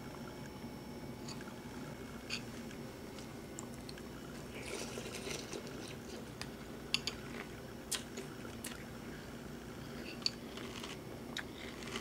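Someone eating cereal from a bowl with a spoon: crunchy chewing and a few sharp clinks of the spoon against the bowl, over a steady low room hum.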